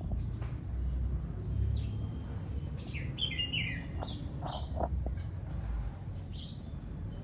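Songbirds chirping: short calls scattered throughout, with a quick run of chirps about three seconds in, over a steady low rumble.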